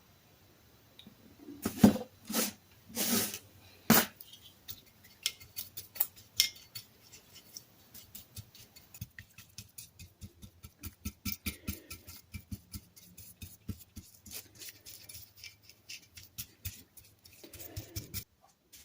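Workshop handling noises: a few louder knocks and clatters in the first few seconds, then a long run of quick, light clicks and taps, several a second, of tools and metal parts being worked on a workbench.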